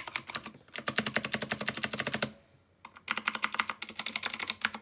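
Motospeed CK61 mechanical keyboard with clicky blue switches being typed on fast, a rapid run of key clicks in three bursts with a short pause about half a second in and a longer one a little past two seconds.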